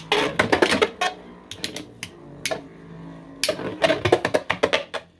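3D-printed Beyblade spinning tops clashing and rattling in a plastic stadium. Two bursts of rapid clicking hits, one at the start and one near the end, over a faint steady spinning hum.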